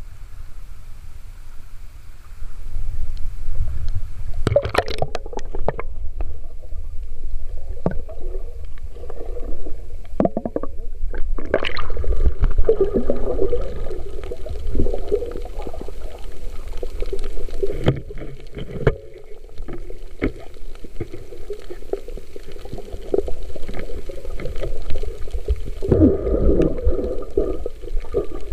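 Muffled underwater sound picked up by a submerged camera in shallow sea water: a steady low rumble with gurgling, and scattered knocks and splashes.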